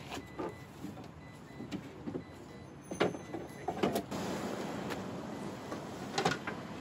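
Several short wooden knocks and bumps as plywood raft modules are shifted and packed into a small car's boot. A steady background rush comes up about four seconds in.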